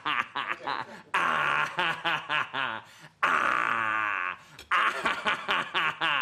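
A person laughing helplessly: long, high, wavering wheezes alternate with runs of short bursts of laughter, the cycle repeating about every two seconds.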